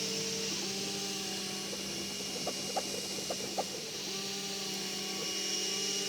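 Prusa i3 3D printer printing: its stepper motors whine in steady tones that jump to new pitches with each move, over the steady hiss of a cooling fan. Around the middle come a handful of short, quick ticks.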